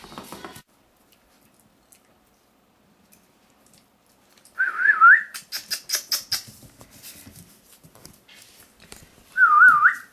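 Two short, high warbling whistles about five seconds apart, each wavering up and down a few times, used to call the puppies; between them, light clicking and scuffling of puppies at play.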